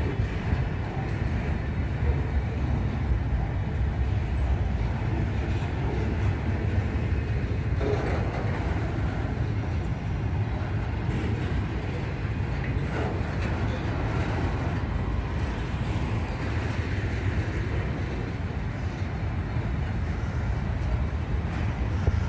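Intermodal freight train's container wagons rolling past steadily, a continuous low rumble of wheels on rail.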